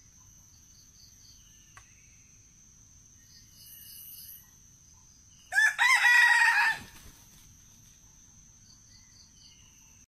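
Red junglefowl rooster giving one short crow about halfway through, over a steady high-pitched drone.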